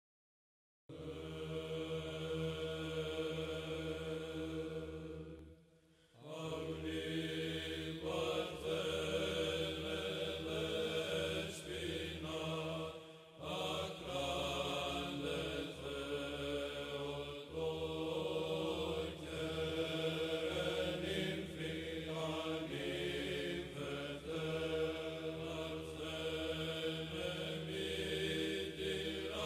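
Byzantine-style chant: voices chanting a melody over a steady held drone note. It starts about a second in and breaks briefly twice, near six seconds and near thirteen seconds.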